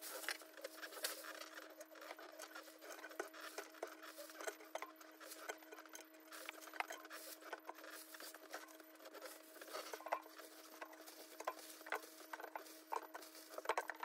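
Faint clicks, taps and rustles of groceries being handled and set into a refrigerator's vegetable drawer, irregular throughout, over a steady low hum.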